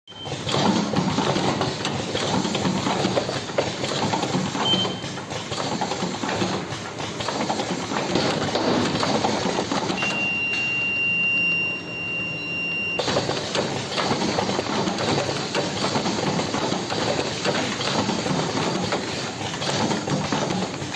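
Automatic cartoning machine running, a continuous fast mechanical clatter as it packs cough syrup into cartons. About ten seconds in, the clatter gives way for roughly three seconds to a quieter hiss with a steady high whine, then resumes.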